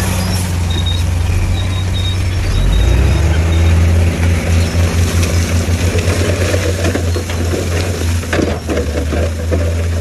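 Heavy diesel truck engine running under load, revving up with a rising pitch about three seconds in, then throbbing in quick pulses. A few knocks and clatter come near the end.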